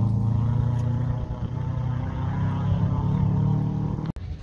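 Rally car engine running hard on a gravel stage, a steady engine note that holds with slight rises and falls, cut off abruptly just before the end.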